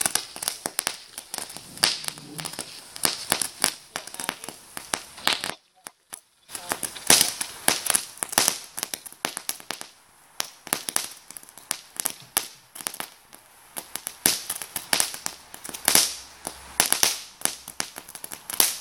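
Crackling ground firework fountain: a dense, irregular stream of sharp pops and crackles as it throws sparks. The sound cuts out for about a second some five and a half seconds in, then the crackling resumes.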